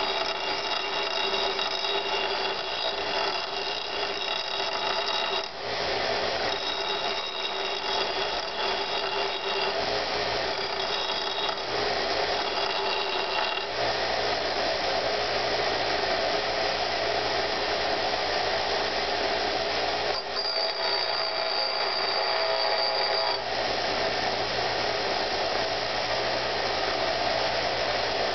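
Bench grinder running with a wire wheel scrubbing rust off a steel hatchet head: a steady whine with a scratchy brushing noise. The higher tones fade and return as the head is pressed to the wheel and moved, with a few short dips where it is lifted off.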